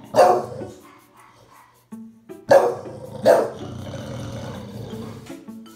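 Bulldog barking three times: once at the start, then twice about a second apart midway. Background music plays underneath.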